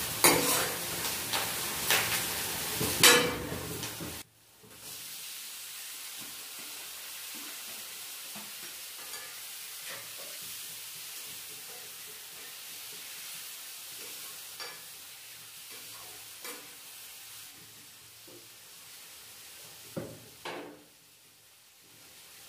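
Spatula strokes clanking and scraping in a steel kadai for the first few seconds. After a sudden break comes steady sizzling of chopped tomatoes frying in oil, with light taps, and two sharper knocks near the end.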